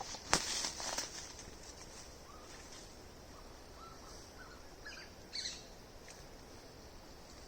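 Quiet rural outdoor ambience: a few sharp handling clicks and rustles in the first second, a steady high hiss, scattered faint bird chirps, and a short bird call about five seconds in.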